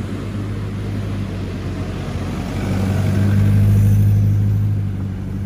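A Toyota Land Cruiser Prado four-wheel drive driving along beach sand past the microphone: a steady low engine hum that swells about three seconds in as it comes closest, then eases, over a steady hiss.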